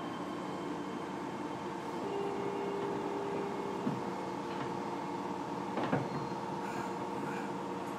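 Interior of a Fukuoka City Subway 1000N series car standing still, with the steady hum of its onboard equipment. A short steady tone sounds about two seconds in, and a single knock comes about six seconds in.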